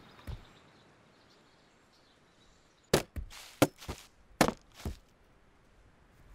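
Axe chopping firewood on a chopping stump: a single strike just after the start, then a quick cluster of about six sharp wooden cracks and knocks a few seconds in.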